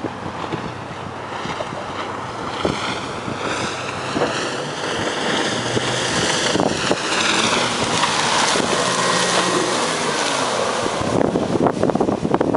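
Outboard motor of a Key West 176 Sportsman center-console boat running at speed, growing louder as the boat approaches, with hull and water rush. Wind buffets the microphone, choppy near the end.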